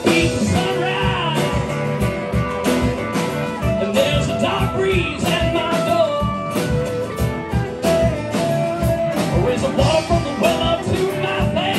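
A live band playing: drum kit keeping a steady beat under electric bass, acoustic guitar and electric guitar, in a rock and blues style.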